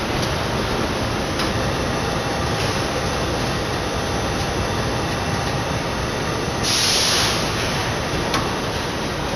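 Steady running noise of a rockwool sandwich panel production line, its roller conveyors carrying rockwool slabs. A brief loud hiss comes about seven seconds in, with a couple of faint clicks earlier on.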